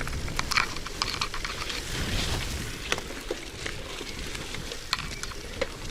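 Bicycle riding over wet ground: a steady hiss of tyres on the wet surface with scattered small ticks and rattles, over a low rumble of wind on the microphone.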